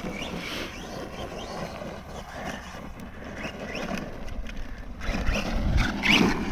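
Rival MT10 RC monster truck driving on dirt, its electric motor whining up and down with the throttle over tyre and gravel noise; a low rumble grows louder near the end.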